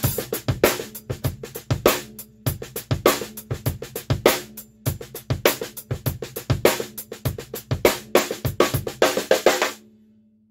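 Worldmax Black Dawg 14x5 brass snare drum played in fast strokes and fills on its stock, untuned heads, damped with a snare weight, with bass drum and cymbal strokes mixed in. The playing stops near the end and a low drum ring fades out.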